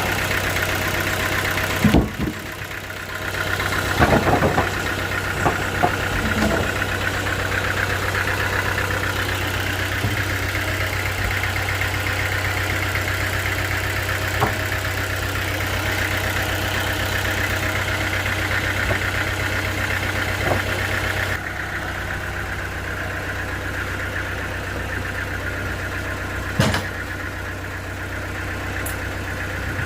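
Sawmill engine running steadily, with a few sharp knocks about two seconds in, between four and six seconds in, and near the end. About two-thirds of the way through it drops slightly in level and loses some of its higher sound.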